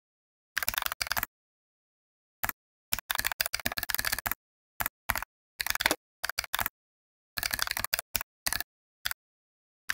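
Computer keyboard typing: quick runs of key clicks in irregular bursts, a few short groups and several longer runs, with dead silence between them.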